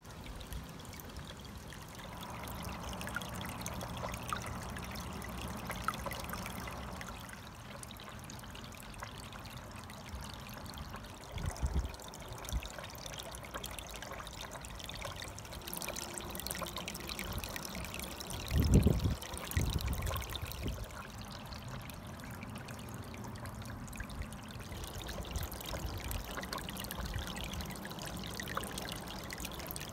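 Small waterfall in a wine-barrel pond spilling over a spillway lip into the water, a steady trickling splash. A few low bumps come around twelve seconds in, and a louder cluster just before twenty seconds.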